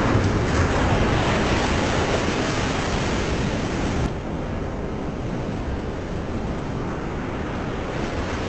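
Rushing floodwater: a loud, steady roaring noise that drops abruptly about four seconds in to a quieter, steady rush.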